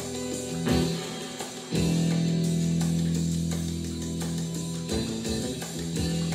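Music led by guitar: held chords, with a new chord struck about two seconds in and sustained.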